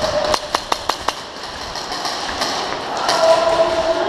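Airsoft pistol fired rapidly, a string of sharp pops about five a second that stops about a second in. A noisy rush of movement and voices follows.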